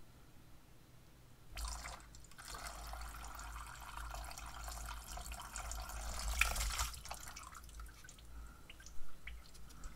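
Coolant running out in a stream as a coolant hose is worked off its fitting, splashing into a drip pan. The flow dies away after about seven seconds to scattered drips.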